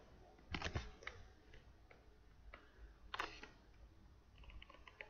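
Faint, scattered clicks and taps from drawing lines on a computer, the sharpest about three seconds in, then a quick run of small ticks near the end.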